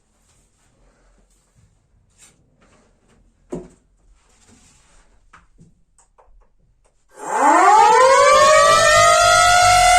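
Quiet with a few faint clicks and a single knock, then about seven seconds in a siren starts up loud. Its pitch climbs steeply over about two seconds and then holds steady as a sustained wail.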